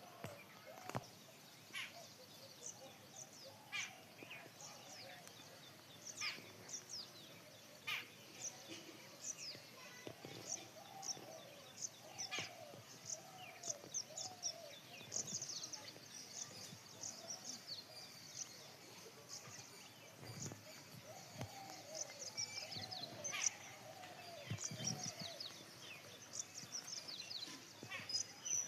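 Many small birds chirping in quick, overlapping calls, with fainter, lower calls that rise and fall underneath.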